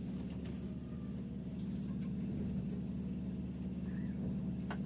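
Steady low background hum, with a short click near the end.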